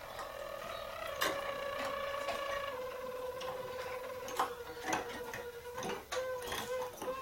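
Harzer roller canary singing a long, low rolling tour that sinks slightly in pitch over about five seconds. Near the end it breaks into short separate notes, and a few sharp clicks are heard along the way.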